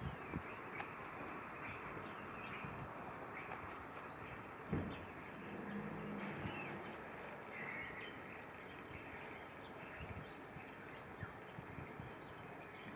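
Scattered short bird chirps and calls over a steady background hiss, with one low thump about five seconds in.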